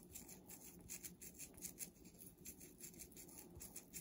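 Faint, quick scratchy rubbing of hair being worked with a three-prong dreadlock crochet needle and rolled between the fingers to form a loc extension. It comes as uneven strokes, several a second.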